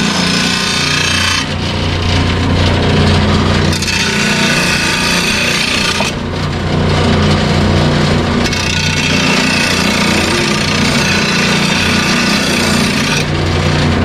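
RBG-950 blade sharpening machine running with its steady motor hum while its grinding wheel grinds the edge of a Ballard gold mower blade. The rasping grinding noise swells and eases several times as the blade is passed across the wheel.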